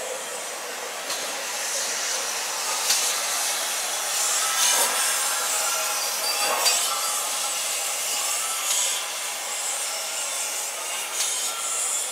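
Steam locomotive moving a train slowly, with a steady hiss of escaping steam and a few scattered clanks.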